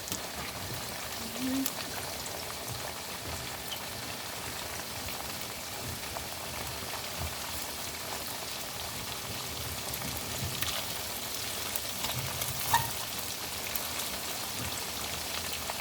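Chicken pieces frying in hot oil in a pot: a steady crackling sizzle, with a few short clicks as the pieces are turned, the sharpest about 13 seconds in.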